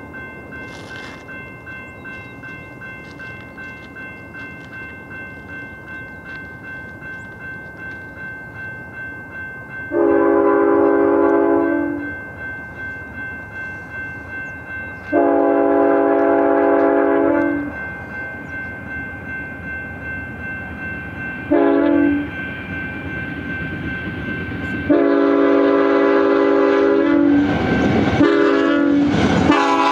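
Grade-crossing bells ringing steadily while a BNSF freight train's GE locomotive horn blows the crossing signal: long, long, short, long. Near the end the lead locomotives' engines and wheels grow loud as they reach the crossing.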